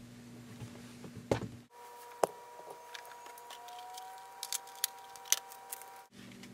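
A 2007 MacBook booting: a faint steady electronic whine with a few light scattered clicks, the system still starting up after new RAM was installed.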